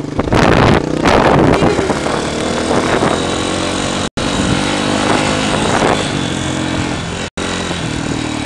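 Small dirt bike engine running steadily as the bike rides across grass, with wind rushing over the microphone in the first second or so. The sound drops out for an instant twice.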